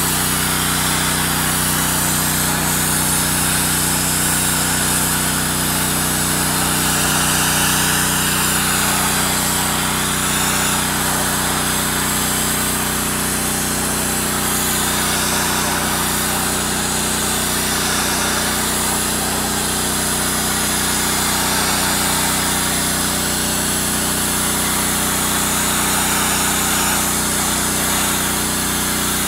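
Dry-ice blasting lance firing a continuous jet against a boat's hull: a steady loud hiss over the even hum of the blasting machine, with a faint low pulse about once a second.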